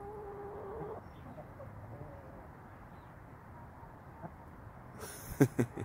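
A hen gives a soft, steady, low call lasting about a second, with a fainter call around two seconds in. Near the end come three sharp knocks close together, the loudest sounds here.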